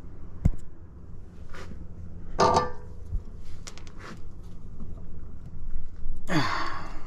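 Scattered small metal clicks and knocks as a castle nut and the new tie rod end are handled and worked by hand, with a dull knock about half a second in and a louder scraping rustle near the end.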